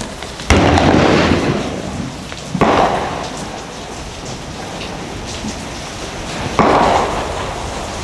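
Three gunshots, the second about two seconds after the first and the third about four seconds later, each trailing off in a rolling echo of about a second, over the steady hiss of rain.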